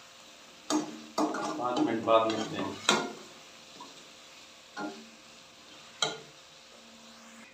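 Metal slotted spatula stirring and scraping chicken and masala around a metal pot, with sharp clicks as it knocks the pot's sides, over a faint frying sizzle. The scraping is busiest in the first three seconds, then it quietens to a few knocks.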